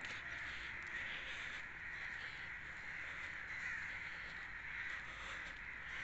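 A steady chorus of many birds calling together, with a few single calls standing out now and then.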